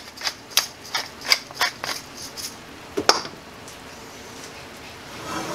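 Pepper mill being twisted to grind black pepper: a run of sharp clicks, about five a second, for a couple of seconds, then one more click about three seconds in.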